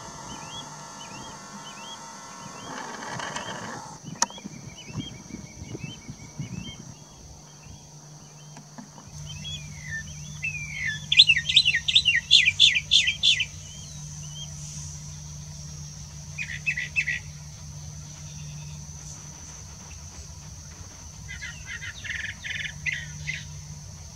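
Birds singing: a repeated chirp early on, then bursts of quick, bright song notes, loudest about ten to thirteen seconds in, over a steady high insect trill.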